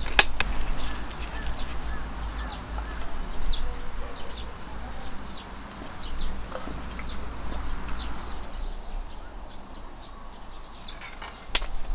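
Small birds chirping now and then over a steady outdoor background. A sharp clink comes right at the start and another near the end.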